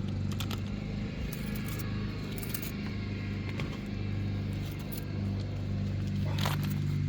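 Steady low engine hum of a car running, with scattered light metallic clinks and jingles; one louder clink comes near the end.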